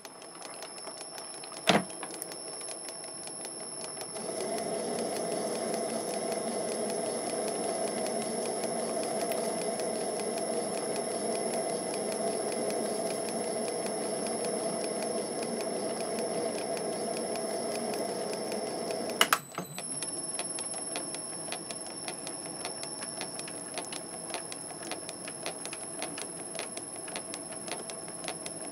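MN-80 lathe running under power while cutting an M16x1 thread on the end of a tube: a steady mechanical hum with a high whine over it. A sharp click comes about 2 s in and a louder one just before two-thirds of the way through, after which a fast, fine ticking goes on.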